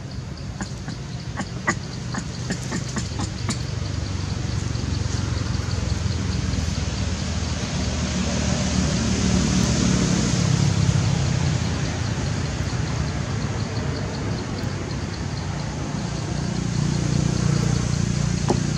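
A steady low rumble like an engine running, under an even high hiss, swelling slowly and easing off; a few faint ticks in the first few seconds.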